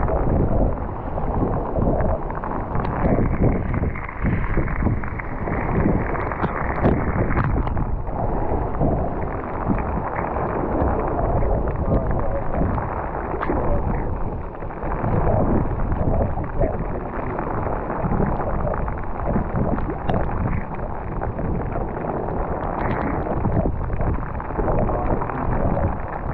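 Strong wind buffeting the microphone in gusts over choppy sea water.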